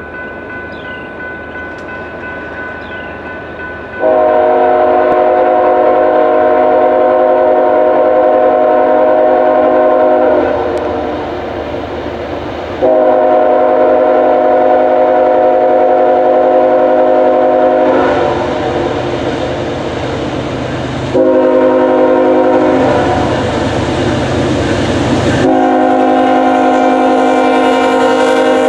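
Multi-chime air horn of a Norfolk Southern diesel freight locomotive sounding four blasts starting about four seconds in: long, long, a shorter one, then long, the pattern of a grade-crossing signal. Between blasts the diesel engines and wheels on the rails rumble as the train approaches.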